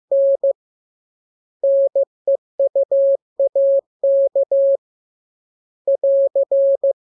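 Morse code sent as a steady beep of about 600 Hz, keyed in short dots and long dashes: a practice radiogram in a letters lesson, its characters separated by pauses, with a long gap about a second in and a last group of dots and dashes near the end.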